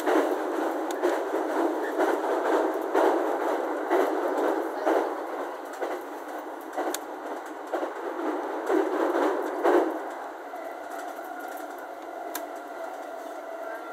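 Running noise heard inside a moving E231-series electric commuter train: a steady rumble with uneven knocks from the wheels on the track, loud for about ten seconds, then quieter and smoother with a faint steady hum.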